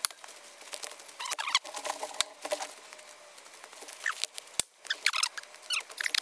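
Footsteps crunching and rustling through dry fallen leaves, in uneven bursts of steps, with a few sharp clicks.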